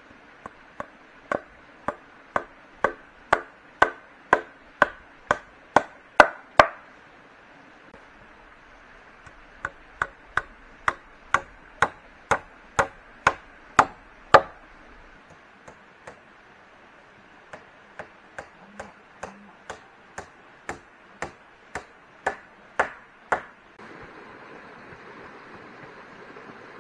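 Chopping: a blade striking down about twice a second in three runs of strokes, each run growing louder. Near the end the chopping stops and a steady rushing of flowing water begins.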